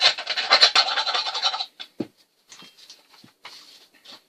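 Rapid scratchy scraping for just under two seconds, then a few light scrapes and taps: debris being cleaned out of a chainsaw.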